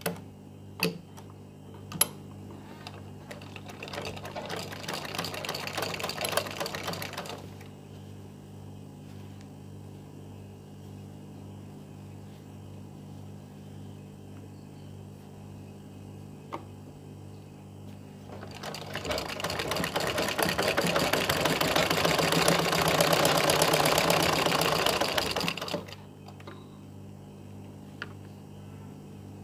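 Domestic sewing machine stitching cotton fabric in two runs: a shorter, quieter run a few seconds in and a longer, louder one about two-thirds of the way through. A few sharp clicks come near the start.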